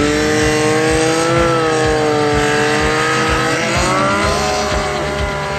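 Snowmobile engine running at high, held revs while pulling through deep powder, its pitch wavering and dipping briefly about four seconds in.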